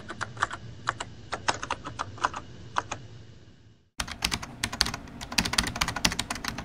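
Rapid, irregular clicking like typing on a keyboard. The clicks come sparser for about four seconds, stop for a moment, then come back denser and brighter.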